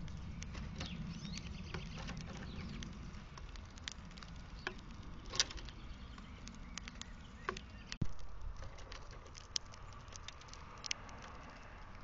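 Small birds feeding on a plastic seed-tray feeder right by its built-in microphone: quick irregular taps and clicks of beaks and feet on seed and plastic as house sparrows peck, over a low rumble. There is a single louder knock about eight seconds in.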